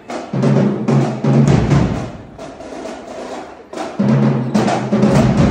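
Marching band playing: drums beating steadily while low brass, sousaphones and trombones, sound held notes in two loud phrases, near the start and again about four seconds in.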